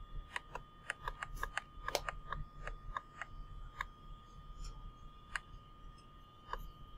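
A run of irregular light clicks and taps, thick for the first couple of seconds and sparser after, over a faint steady high whine.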